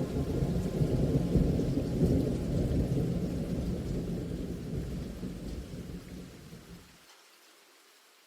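Rolling thunder over rain hiss: a low rumble that swells in the first couple of seconds, then fades and cuts off about seven seconds in, leaving only faint hiss.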